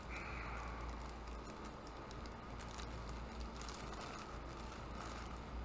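Light crinkling and rustling of thin clear plastic packaging bags being pulled off a plastic figure by hand, over the steady low hum of an air conditioner.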